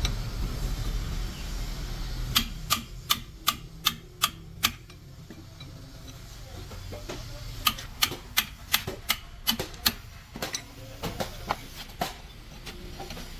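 Sharp, short taps in two runs of about three a second, the second run trailing off into a few scattered taps, over a steady low hum.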